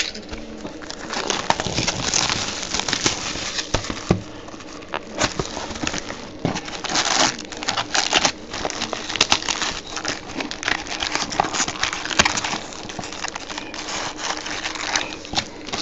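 Plastic wrap and packaging of a Topps Platinum football card box crinkling and crackling as hands tear it open and handle it, with many small irregular clicks and rustles.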